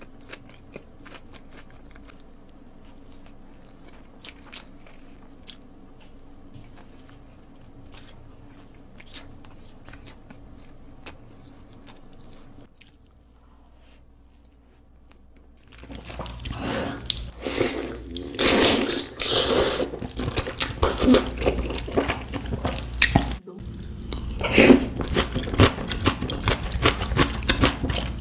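Close-miked eating: soft chewing of bread with faint mouth clicks, then from a little past halfway, loud wet slurping and chewing of ramen noodles in repeated bursts.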